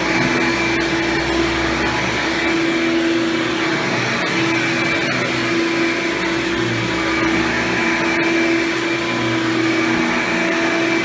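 Hoover Power Drive Supreme upright vacuum, fitted with a Quadraflex brush roll, running steadily while vacuuming: an even motor hum and whine that swells and eases slightly as it is pushed, with a few faint clicks.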